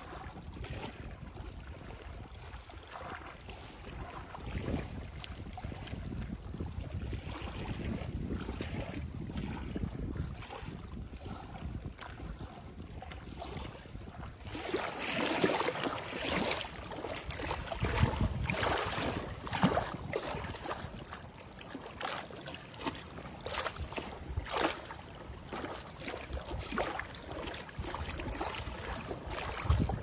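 Wind rumbling on the microphone over steady outdoor noise, then, about halfway through, choppy lake water lapping and splashing against the shore, louder, with the wind still running.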